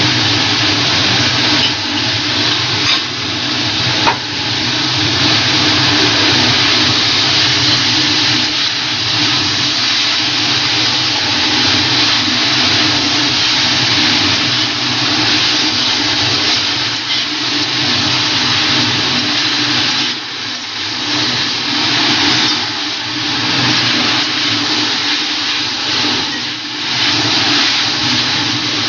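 Stir-frying chicken and vegetables in an aluminium kadhai over a gas flame: a steady loud rush of sizzling and kitchen noise with a low hum, and a spatula now and then scraping and knocking against the pan.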